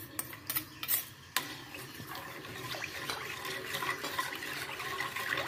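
Metal spoon stirring coconut milk in a metal wok: a few light clinks at first, then steady scraping and sloshing of the liquid against the pan from about a second and a half in.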